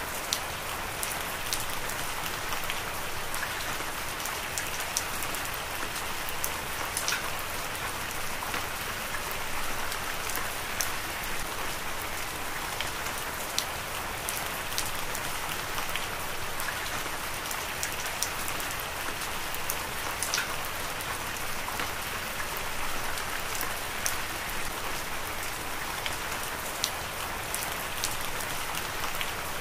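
Heavy rain falling steadily, a constant hiss with many sharp drop hits scattered through it.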